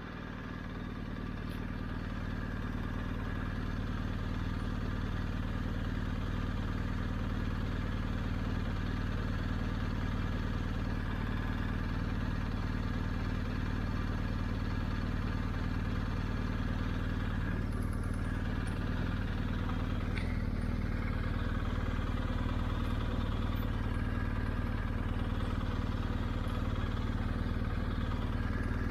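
BMW R 1250 GS Adventure's boxer-twin engine running at a steady, unchanging pitch, fading in over the first couple of seconds.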